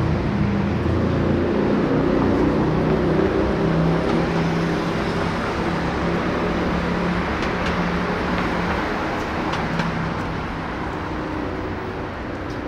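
City street traffic: a steady mix of car and engine noise with a low hum, slowly easing off toward the end.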